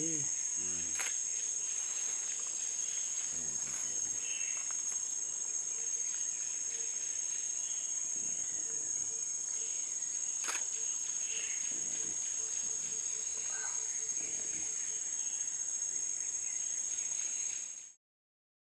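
Steady, high-pitched chirring of insects, with a few faint clicks; it cuts off abruptly near the end.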